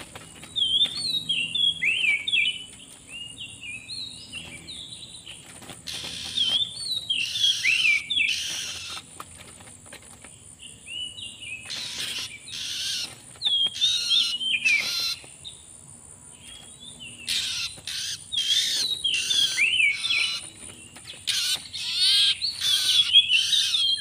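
Oriental magpie-robin (kacer) singing: quick, varied whistled phrases mixed with harsher rasping notes, in four bouts separated by short pauses.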